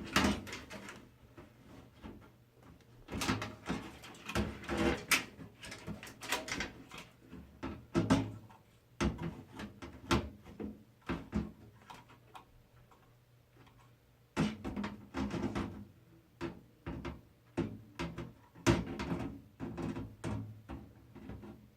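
Irregular clicks, knocks and rustling of computer parts and a PC case being handled, in clusters with quieter gaps between them.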